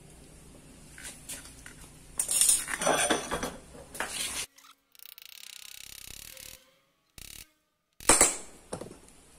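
Metal clinks and knocks as a bicycle hub, its 6000 cartridge bearing and a threaded rod are handled while the bearing is being fitted. There is a cluster of clinks about two to four seconds in, then the sound drops out briefly, and a sharp knock comes near the end.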